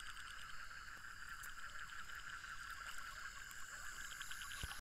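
Night chorus of frogs and insects: a steady high drone with short trains of rapid pulsed calls above it, and a soft bump just before the end.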